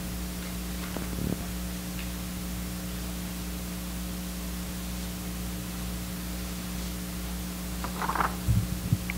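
Steady electrical mains hum and hiss from the lectern microphone's sound system, with no one speaking. Faint handling sounds come near the end as papers are brought to the microphone.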